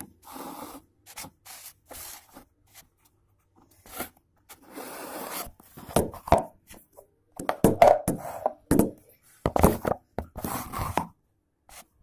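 Handling noise of a phone being picked up and repositioned: fingers and sleeve rubbing and scraping against it in irregular bursts, louder in the second half.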